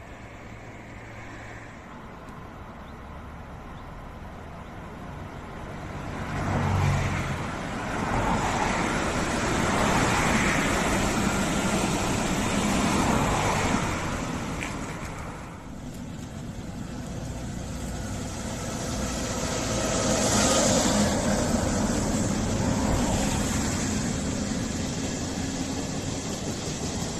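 Electric locomotive-hauled regional passenger train passing beneath: a rumble and rattle of wheels on the rails that grows, is loudest about seven seconds in, dips briefly around fifteen seconds, swells again around twenty seconds and then slowly fades.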